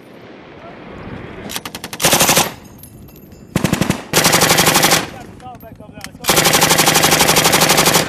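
Belt-fed machine guns firing bursts of automatic fire: a short burst about one and a half seconds in, two more around four seconds in, and the longest, about two seconds, near the end.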